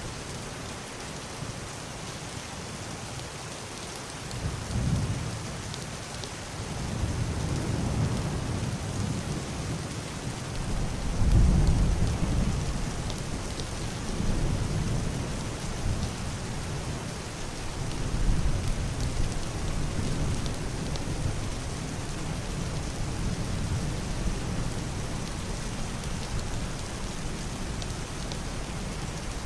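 Heavy rain beating on a roof and window in a steady hiss, with low rolling thunder that swells several times and peaks about eleven seconds in before dying back to a distant rumble.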